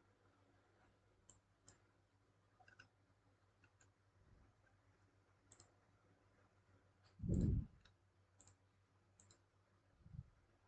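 Scattered computer mouse clicks, a few seconds apart, with a dull low thump about seven seconds in and a softer one near the end.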